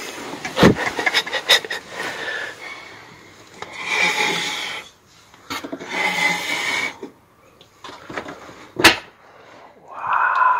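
Wooden fold-down table panel in a capsule-hotel pod being handled and lowered: a few quick clicks and knocks of wood, scraping or rubbing in between, and one sharp knock a couple of seconds before the end.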